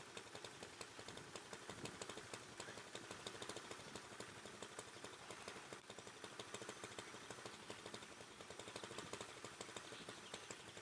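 Small boat engine running faintly and steadily, a rapid, even putter of many ticks a second over a low hum.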